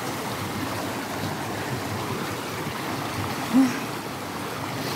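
River water rushing over rocks in a steady rush. A brief voice sound, the loudest moment, about three and a half seconds in.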